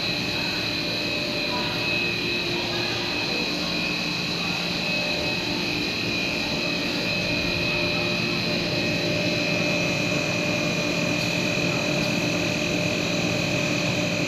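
Four-screw cast stretch film machine running in production: a steady mechanical drone of motors and drives with several constant whining tones, one high and piercing, and a low hum that comes in about four seconds in.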